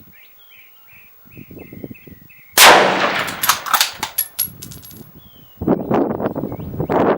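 A rifle shot through a JP Recoil Eliminator muzzle brake about two and a half seconds in, very loud and sudden, its report echoing away over the next few seconds. A second loud, rough burst of noise starts about three seconds later.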